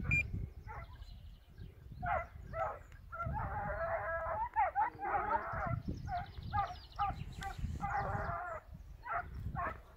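Swiss hounds (Schweizer Laufhund) baying on the hillside: a run of repeated pitched calls, with two longer drawn-out howls about four and eight seconds in.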